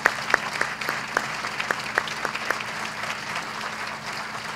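Audience applauding. One person's claps ring out sharply close to the microphone, about four a second, for the first two and a half seconds, while the applause of the room carries on and slowly fades.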